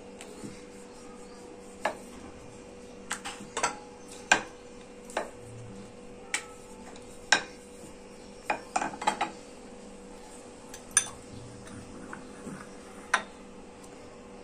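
Wooden rolling pin knocking and clicking against a rolling board while a dough wrapper is rolled out: scattered sharp clicks at irregular intervals over a faint steady hum.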